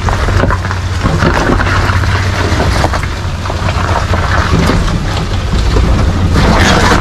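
Toyota Land Cruiser 80 series (FZJ80) straight-six engine running steadily as it is driven off-road, under a loud rough rushing noise with scattered crackles that swells about a second in and again near the end.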